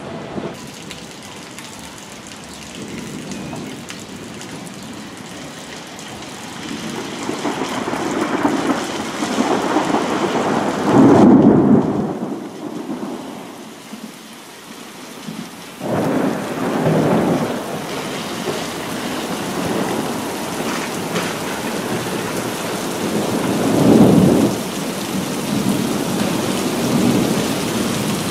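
Rain falling steadily with rolling thunder. The thunder swells into loud rumbles about ten seconds in and again near the end.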